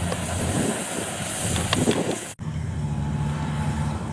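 Diesel combine harvester running as it cuts and threshes rice, a steady engine-and-machinery noise. About two seconds in it breaks off abruptly into a steadier, lower engine hum with a clear pitch, from a tracked rice carrier loaded with bags.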